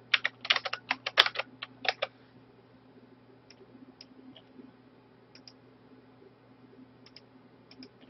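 Typing on a computer keyboard: a quick run of sharp keystrokes in the first two seconds, then a few faint scattered clicks.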